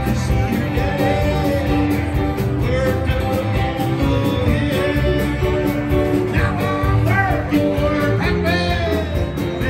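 Live band playing amplified country-rock on guitars, bass and drums. Several notes bend up and down in pitch in the second half.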